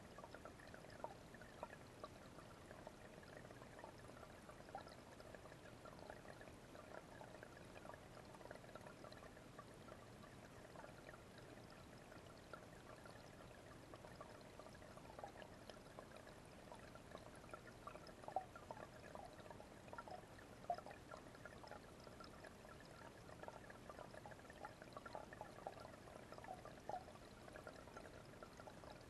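Small garden-pond waterfall, faint and steady, water pouring and trickling into the pond with many small splashes.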